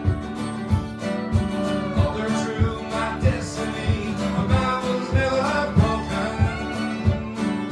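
Live acoustic folk band playing an instrumental passage with no singing: strummed acoustic guitar and other plucked strings over a steady beat of about three a second, with a melody line in the middle.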